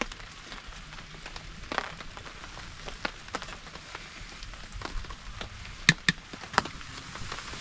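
Light rain falling on a tarp: a steady hiss with scattered sharp drips, two of the loudest close together about six seconds in.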